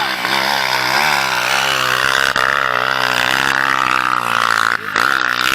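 Dirt bike engine running under a rider, its pitch rising and falling with the throttle, with a brief dip near the end.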